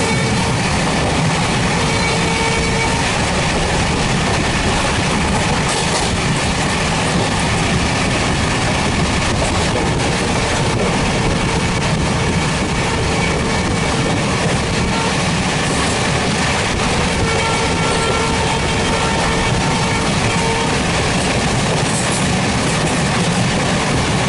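A train running past at close range: steady, loud noise of wheels on track with clickety-clack over the rail joints, unbroken throughout.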